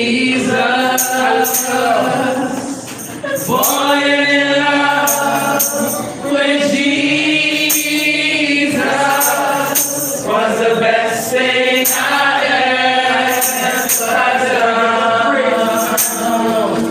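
A woman singing a slow worship song into a microphone, holding long notes with short breaths between phrases, over jingling hand percussion keeping the beat.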